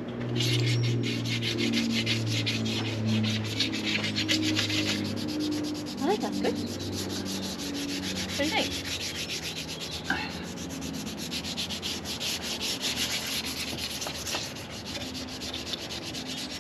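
Sandpaper worked by hand over the epoxy-coated aluminium leg of an SD20 sail drive, in quick back-and-forth rasping strokes. The sanding knocks down runs and nodules in the coating before the final coat.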